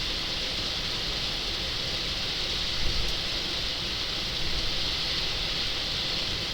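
Steady hiss of heavy rain and wet-road tyre noise heard inside the cabin of a 2023 Tesla Model 3 driving at speed, with a low rumble underneath. A brief small knock sounds about three seconds in.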